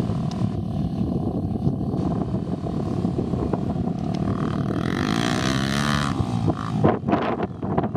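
Honda XR250 Tornado dirt bike's single-cylinder four-stroke engine running as the bike rides past close by, its pitch rising and falling about halfway through.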